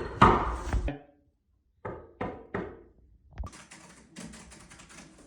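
Three knocks on a door, evenly spaced, about two seconds in, after a louder clatter at the start and followed by a faint rattle.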